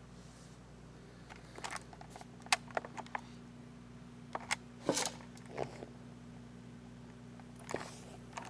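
Handling noise from a handheld video camera being moved and repositioned: a string of sharp clicks and knocks, heaviest a few seconds in, with one more near the end, over a steady low electrical hum.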